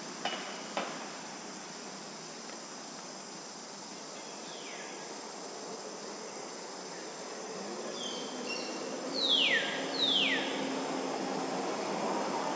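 Steady drone of insects, with two short clicks near the start. A bird gives a faint downward-sliding call, then a few short notes, then two loud whistled calls that slide steeply down in pitch, one right after the other, near the end.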